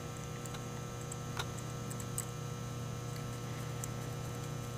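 Steady low hum with a few faint, short clicks as small metal and plastic clutch master cylinder parts are handled.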